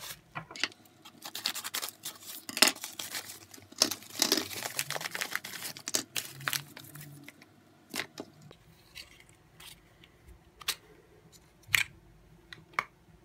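A yellow padded mailer being torn open, with rustling, crinkling and scratching of the packaging for several seconds, then a few separate light clicks and taps as small cardboard boxes are handled on a wooden desk.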